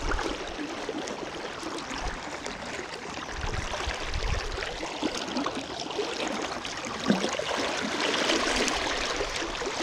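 Fast river current rushing and burbling steadily around a wading angler, with a few low bumps and a single sharp knock about seven seconds in.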